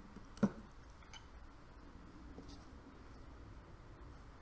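A single sharp metallic click about half a second in as a gearbox part is fitted into the gearbox casing, followed by faint handling sounds of the parts.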